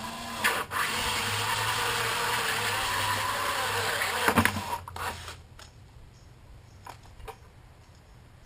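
Cordless drill driving a 1.5-inch hole saw through the wall of a plastic 5-gallon bucket, the motor's pitch wavering under load as the saw cuts for about four seconds, then stopping. A few small clicks follow.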